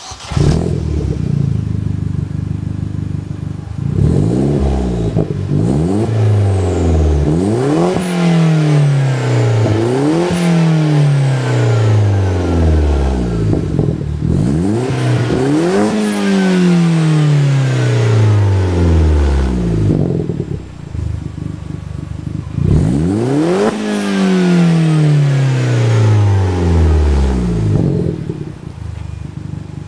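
Vauxhall Corsa D SRi turbocharged petrol engine heard at the tailpipe of a Cobra Sport 3-inch stainless steel turbo-back exhaust with de-cat and resonated centre section. It idles at first, then is revved repeatedly, each rev climbing quickly and falling back slowly to idle. A couple of longer revs come about halfway through and again near the end.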